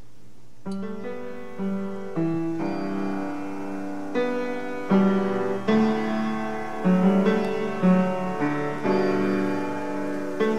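Piano starting a little under a second in and playing a slow introduction of chords and single notes, each struck cleanly and left to ring.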